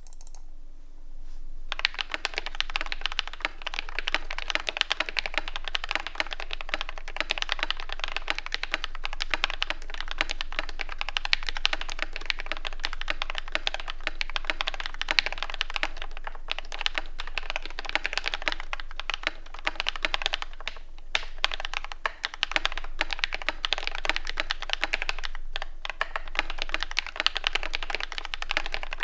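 Fast, continuous typing on a TM680 mechanical keyboard with lubed Akko Matcha Green switches. A dense patter of keystrokes starts about two seconds in, with a few brief pauses.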